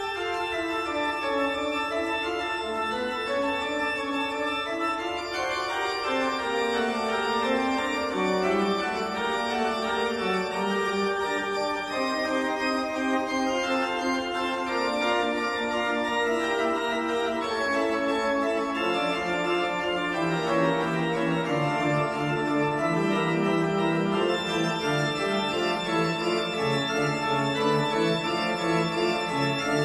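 Background instrumental music of held organ-like keyboard chords that shift slowly from one to the next.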